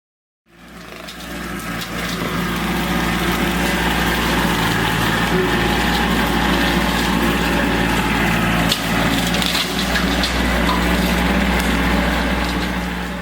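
A brush-clearing machine's engine running steadily under load while wood and brush crack and splinter, with sharp snaps about nine seconds in. It fades in and fades out near the end.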